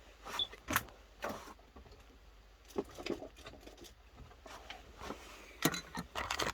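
Scattered clicks and knocks of handling: a battery cell just freed from a pack and tools being picked up, turned and set down on a hard surface.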